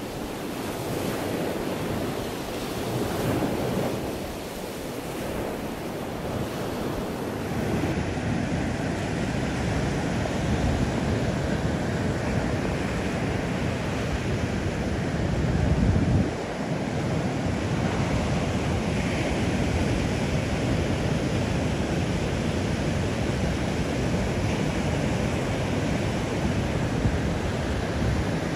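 Ocean surf breaking and washing up a sandy beach, with wind gusting on the microphone; the surf swells louder briefly about halfway through.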